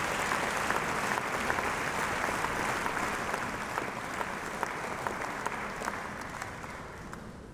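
Audience applauding, a dense patter of many hands clapping that dies away over the last couple of seconds.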